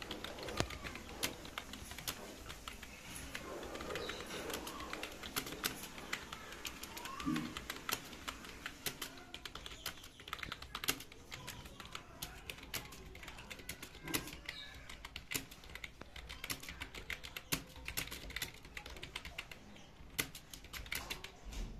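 Computer keyboard being typed on during a typing speed test: a continuous, irregular run of key clicks that stops at the very end.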